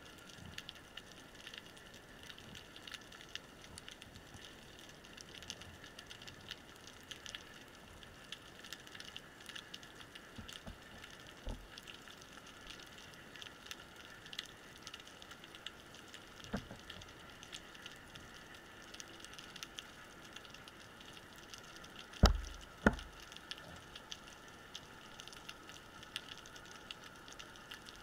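Underwater reef ambience: a constant fine crackle of snapping shrimp, with a few dull knocks, the two loudest about half a second apart a little after the middle.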